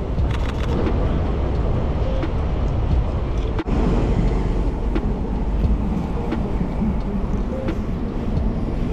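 Steady city street noise: a low traffic rumble with scattered clicks and knocks. It breaks off for an instant about three and a half seconds in.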